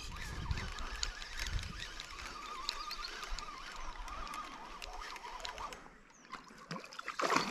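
Spinning reel being worked during the fight with a hooked channel catfish: faint scattered clicks over a soft rustle. Near the end, a splash as the catfish thrashes at the surface close to the bank.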